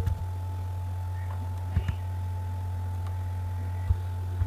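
Steady low hum with a faint high tone above it, broken by two faint clicks, one about two seconds in and one near the end.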